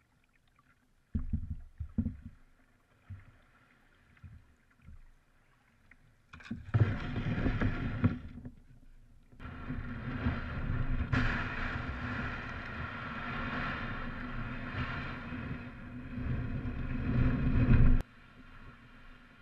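Canoe hull being dragged over beach shingle: a loud, continuous grinding scrape of stones against the hull, after a few scattered knocks as the boat first touches bottom. The scraping cuts off suddenly near the end.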